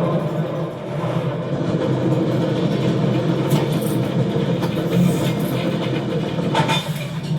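Steady mechanical rumble of the door vault's conveyor machinery, doors running along their rails, with a few brief sharp clanks about halfway and near the end.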